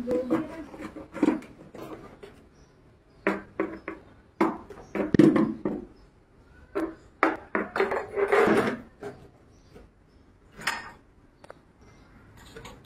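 Irregular knocks, clinks and scraping from a ribbed steel rebar tangled in nylon netting and wire being pulled and worked by hand, with the loudest clatter about five seconds in and again around eight seconds.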